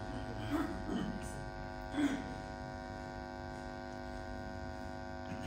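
Steady electrical mains hum, a buzz with many overtones, with a few brief words of a man's voice about half a second and two seconds in.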